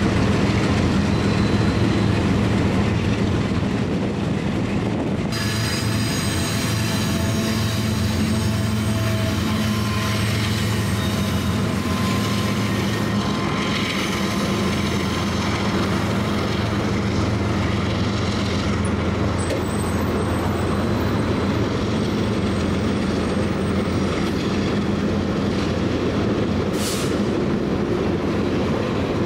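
Freight trains rolling past: a steady rumble of steel wheels on the rails over the low hum of diesel locomotive engines, with faint thin wheel-squeal tones. The sound changes abruptly about five seconds in.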